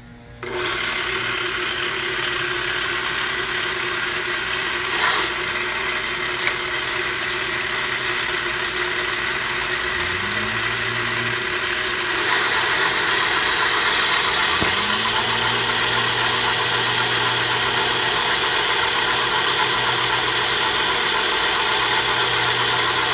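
Portable cylinder boring bar's motor starts just after the start and runs steadily as the bar feeds its cutter down through a Kawasaki 900 jetski cylinder, boring it out for a new sleeve. About halfway through the sound gets louder and hissier.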